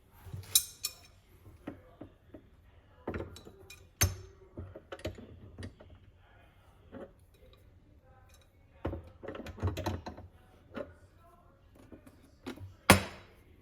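Tools and small metal parts being handled and set down: irregular clicks and knocks, with a sharp knock about half a second in and a louder one near the end.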